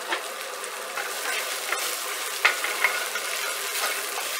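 Chopped carrots and celery sizzling in hot curry-spiced oil in a stainless steel sauté pan, with a wooden spoon clicking and scraping against the pan as they are stirred.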